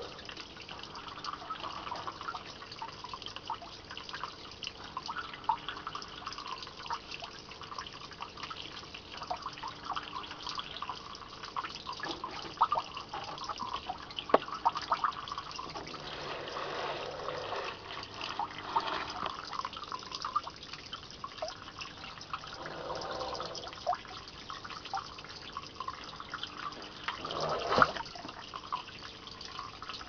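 Water flow splashing and dripping steadily, with many small drips and a few louder swells, the strongest a brief surge near the end.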